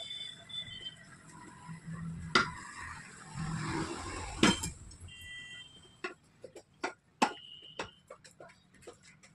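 Metal tools knocking and clinking against a tyre and its steel rim as the tyre is worked off by hand. A few loud single knocks come first, then a quicker run of a dozen or so lighter clicks in the second half.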